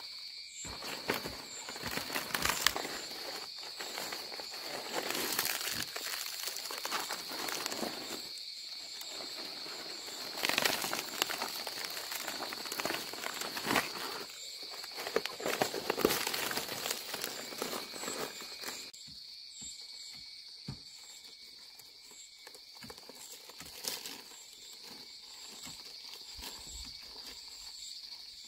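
Rustling and crackling on dry ground with footsteps and scattered sharp clicks, busiest for the first two-thirds and then quieter, over a steady high-pitched whine.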